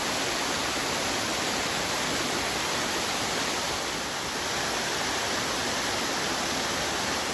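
Waterfall on a woodland creek, its water falling and rushing in a steady, unbroken noise.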